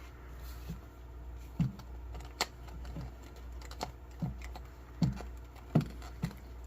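New, stiff leather gun belt creaking and rubbing as it is flexed and handled: a string of about nine short, irregular creaks and clicks.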